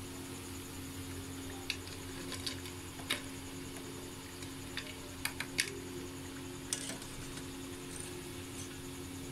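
Pakoras deep-frying in a wok of oil with a steady hum, broken by a few short, sharp clicks of a wire mesh skimmer knocking against the wok as the fried pakoras are lifted out.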